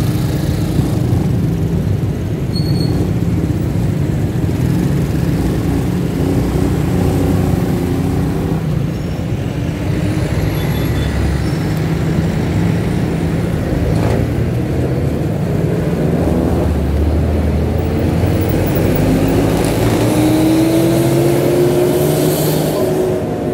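A motorcycle engine running in slow, dense road traffic, with the steady rumble of buses and cars close by. Near the end an engine note rises as a vehicle pulls away.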